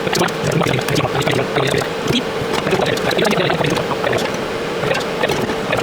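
Electric arc welding on sheet steel: a continuous crackle with irregular sharp pops over a steady hum.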